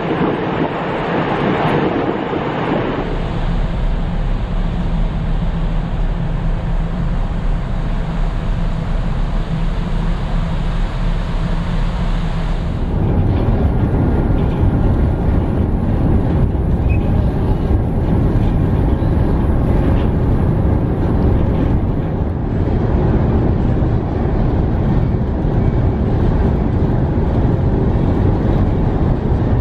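Wind buffeting the microphone at first, then the steady low hum of a large ferry's engines and machinery heard on the open deck, turning into a louder, deeper rumble about thirteen seconds in.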